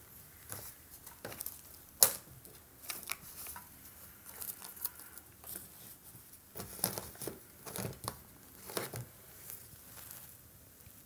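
Painting materials being handled at a palette: soft irregular scrapes, rustles and small clicks, with one sharp tap about two seconds in.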